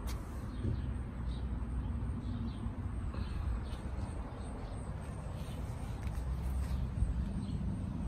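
Outdoor backyard ambience: a steady low rumble with faint, short high chirps scattered through it.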